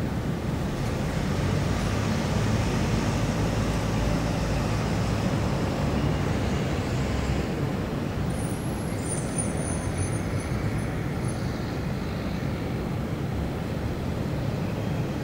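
Steady city traffic noise: a continuous low rumble of road vehicles that never lets up.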